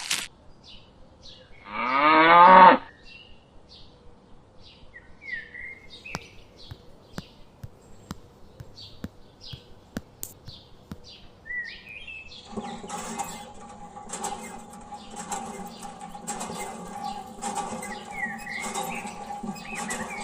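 A cow moos once, a single call about a second long that falls in pitch, about two seconds in. Faint short bird chirps follow, and past halfway a steady layered hum with a repeating beat comes in.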